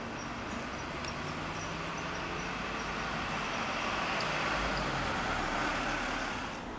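Road traffic rush, a steady noisy hum that swells through the middle and eases near the end, as a vehicle passes.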